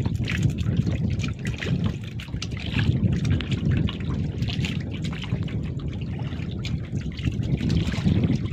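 Choppy water lapping and slapping against the hull of a small wooden boat, irregular small splashes over wind rumbling on the microphone.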